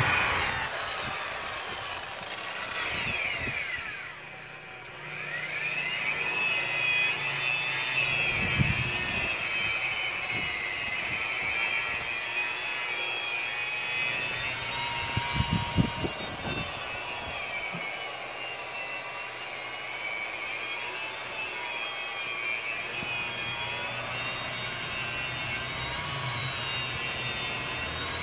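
Electric angle grinder fitted with a buffing pad, running with a steady high whine as it buffs dried 2K urethane paint on a scooter body panel. About three seconds in the motor winds down, then spins back up a second or two later. There are a few low thumps near 8 s and 16 s.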